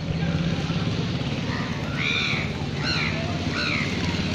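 A crow cawing three or four times in the second half, over a steady low rumble of traffic.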